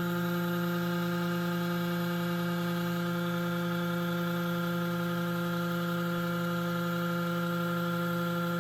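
Creality Ender 3 V2 3D printer giving off a steady, unchanging hum with several pitched overtones: the weird noise the printer is making.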